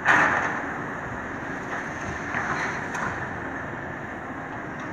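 Demolition excavator with a hydraulic grapple handling concrete rubble: a loud crash of debris just as it starts, then a few lighter knocks and scrapes. The excavator's engine runs steadily underneath.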